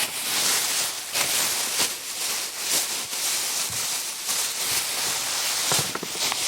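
Steady rustling noise with many irregular crackles, starting abruptly.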